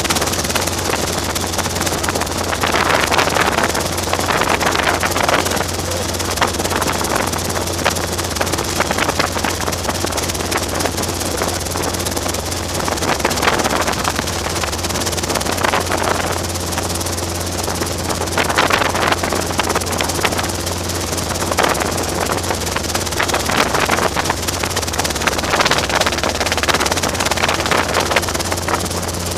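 Robinson R22 helicopter running, with the steady low drone of its engine and rotor under a continuous rushing noise.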